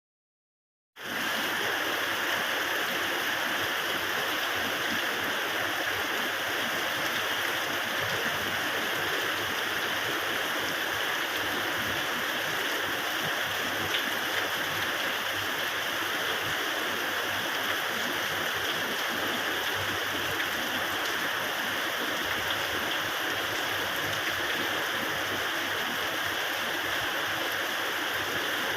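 Rain falling steadily, an even rushing hiss that starts about a second in.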